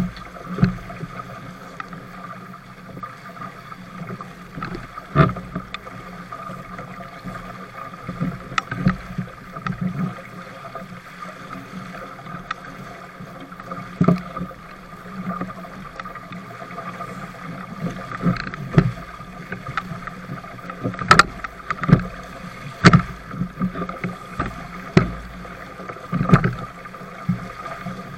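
Small sailboat crossing choppy water: a steady rushing of wind and water against the boat-mounted camera, with irregular sharp knocks and splashes of waves hitting the hull, more frequent in the second half.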